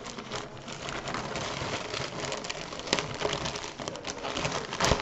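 Packaging rustling and crinkling as a package is handled and opened, with many small clicks and a sharper crack near the end.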